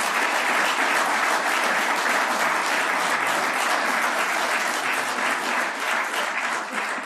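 An audience applauding, a dense, steady patter of many hands clapping that begins to die away near the end.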